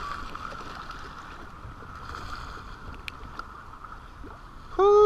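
Steady rushing and splashing of water along the hull of a kayak under way. A loud voice cuts in just before the end.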